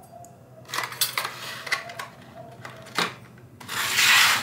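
A CPU stock cooler in its clear plastic clamshell tray being handled and set down. Scattered plastic clicks and taps lead into a loud crinkling rustle near the end.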